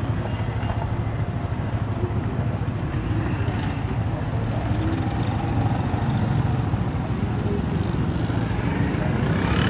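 Vegetables and noodles being stir-fried in a wok with a wooden spatula, over a steady low rumble.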